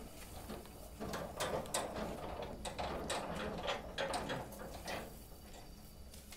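A quick run of scrapes, knocks and rustles as heavy woven sacks of ginger are handled and loaded onto a truck, busiest in the middle and thinning out near the end.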